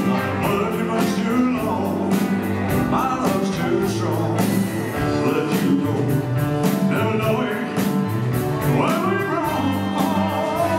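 Live band playing a rock-and-roll ballad: drums keeping a steady beat with cymbals, keyboard and electric guitar, with sung vocal lines coming and going over the band.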